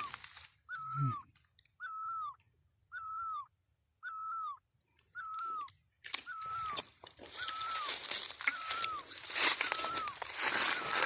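A bird-like call: a short note that rises slightly and then falls, repeated steadily about once a second, about ten times. A steady high whine runs behind it for the first several seconds, and rustling noise rises in the second half.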